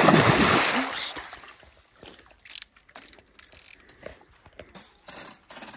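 A hooked pike thrashes at the water's surface: a loud splash that fades over about a second. It is followed by scattered light ticking from the fishing reel as the fish is played.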